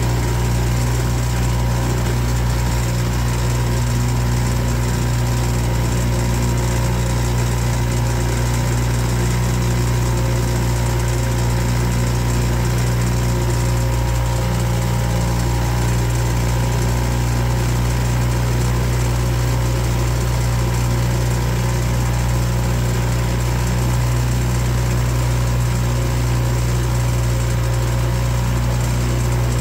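Boat motor running steadily at a constant speed, a continuous low engine hum that does not change in pitch or level.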